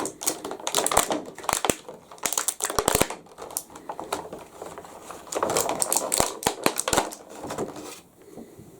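Cardboard box and plastic packaging being handled as a bobblehead figure is worked out of it: irregular bursts of crinkling and rapid clicks, quieter near the end.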